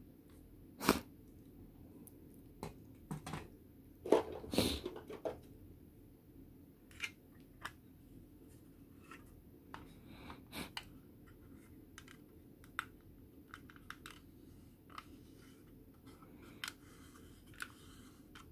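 Hard plastic scale-model parts being handled and turned over: scattered clicks, taps and light scrapes, with louder knocks about a second in and around four to five seconds in.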